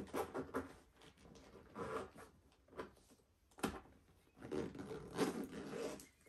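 A fabric toiletry bag being handled and zipped, with rubbing and scraping, and one sharp knock a little past halfway.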